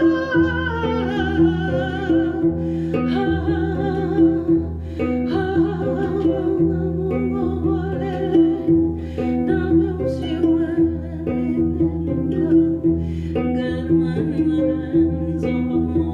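Kora, the West African harp-lute, plucked in a steady repeating pattern of bass and melody notes. A sung note with vibrato glides down and fades out in the first second or so.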